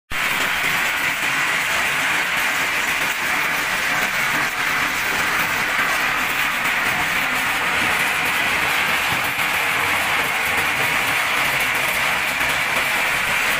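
A stone crushing plant running: cone and jaw crushers with their belt conveyors making a steady, dense mechanical rattle and rumble.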